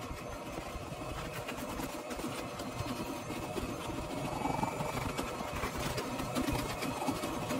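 Vacuum cleaner running, its hose nozzle worked back and forth over dirty car floor carpet, with many small sharp clicks of grit being drawn up the hose.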